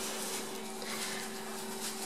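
Shredded newspaper rustling and crackling as Border Collie puppies scuffle and play-wrestle on it, over a steady low hum.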